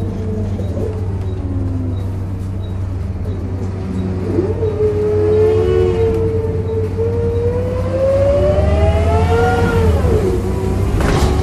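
Volvo B7RLE single-deck bus running, with a pitched groaning noise over the low engine drone that rises and falls in pitch over several seconds. Light, evenly spaced ticks sound about three times a second through the first half, and a short sharp noise comes near the end.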